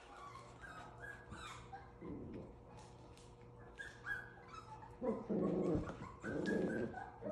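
Seven-week-old Havanese puppies playing: short high whines and yips, then louder growls and barks about five seconds in.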